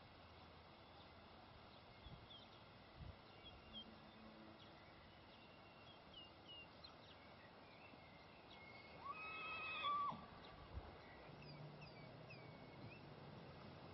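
Quiet outdoor background with scattered faint bird chirps. About nine seconds in comes a single high animal call that holds one pitch for about a second.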